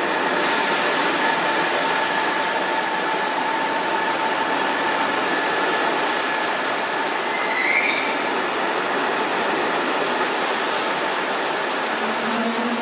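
Double-deck passenger train rolling along a station platform, a steady loud rumble of wheels on rail with a thin whine over it. A short rising wheel squeal comes about three quarters of the way through.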